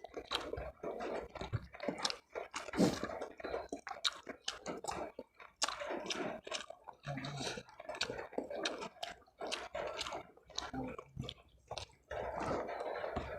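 A person chewing food close to the microphone: a long run of irregular wet mouth clicks and smacks.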